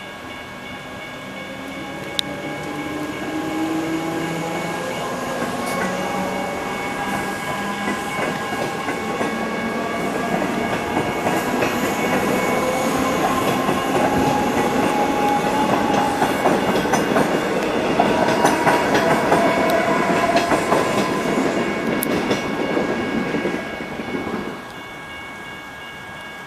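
Melbourne Metro electric suburban train pulling away from the station through a level crossing, its traction motors whining and rising in pitch as it accelerates, with wheels clicking over the rail joints. It builds to its loudest near the end and cuts off suddenly as the last car clears. The crossing's electronic bell rings steadily underneath, faint and scratchy.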